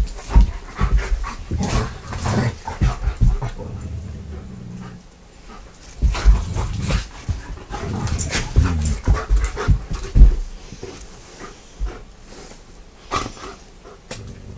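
A German Shepherd dog right at the microphone, panting and giving low whines, with irregular knocks and rubbing as the dog bumps and noses against the phone.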